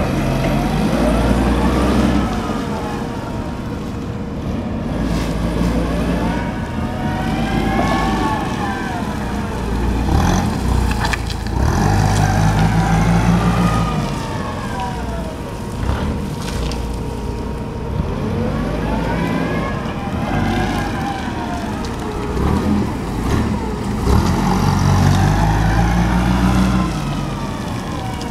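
Toyota 8FGU15 LPG forklift engine revving up and down as the truck drives back and forth, with a whine that rises and falls in pitch with each rev.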